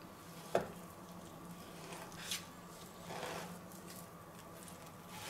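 Knife slicing through raw pork neck on a wooden cutting board: faint, soft cutting with a sharp knock about half a second in and a lighter click a little past two seconds, as the blade meets the board.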